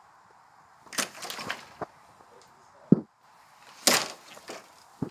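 Two short bursts of rustling noise, about a second in and about four seconds in, with a few dull thumps between and after them.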